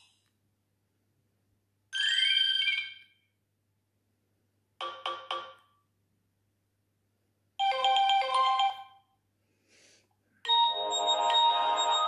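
Nokia 6630 previewing its built-in "Message" alert tones one after another: four short polyphonic jingles with silent gaps between them. The last one starts about ten and a half seconds in and runs on longer.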